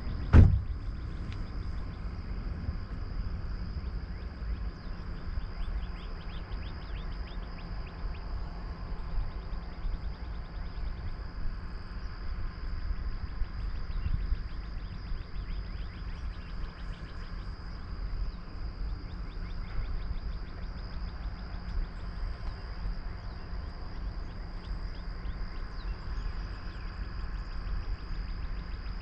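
A car door shuts with a single sharp thump about half a second in. After it, a steady low rumble continues under a thin high steady buzz and rapid ticking of insects.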